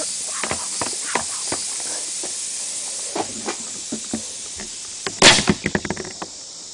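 Homemade PVC compressed-air launcher, charged to 40 psi through a bike valve, firing a rocket: one loud sudden burst of released air about five seconds in, followed by a quick run of clicks and rattles. A steady hiss with scattered light clicks runs beneath it.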